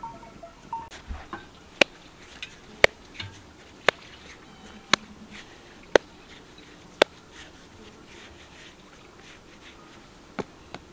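Six sharp knocks, evenly spaced about a second apart, with a few fainter taps and clicks around them.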